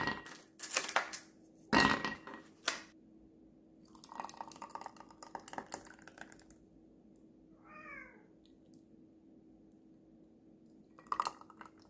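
Ice cubes clinking against glass tumblers in a few sharp knocks, then thick tomato juice poured from a blender jar over the ice for a couple of seconds, with more clinks near the end. A brief wavering pitched sound comes about eight seconds in, over a faint steady hum.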